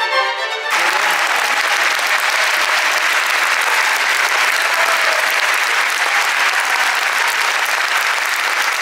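Orchestral string music breaks off less than a second in. An audience then applauds steadily.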